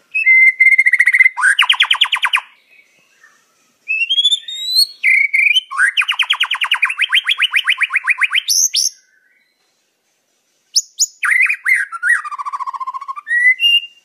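White-rumped shama singing three loud phrases separated by short pauses, each mixing clear whistled notes with fast rattling trills of rapidly repeated notes.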